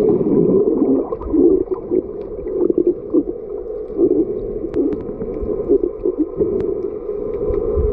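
Muffled underwater sound heard through a camera's waterproof housing: a low, shifting rush and gurgle of water with a few scattered sharp clicks.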